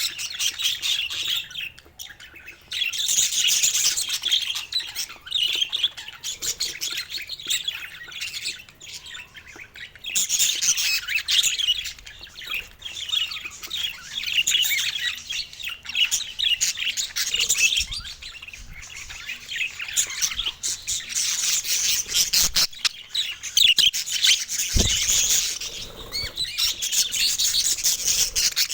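Budgerigars chirping and squawking in fast, chattering bouts, with brief lulls between them.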